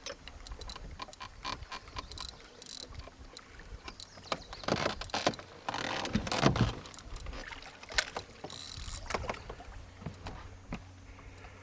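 Knocks, clicks and clatter of gear in a small fishing boat, with two louder rushing sounds about five and six and a half seconds in.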